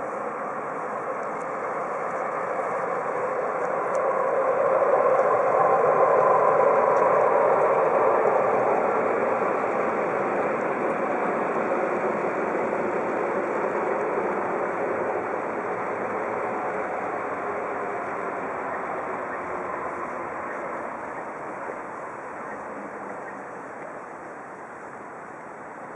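Engine of a passing motor vehicle, swelling to its loudest about six seconds in and then slowly fading away.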